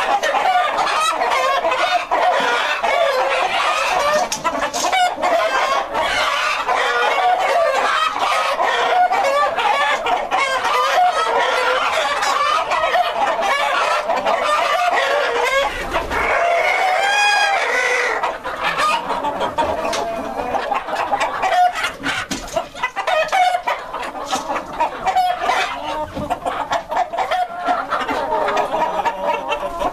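A large flock of White Plymouth Rock chickens, hens and roosters, clucking and calling continuously in a dense, overlapping chorus. One louder, drawn-out call stands out a little past halfway through.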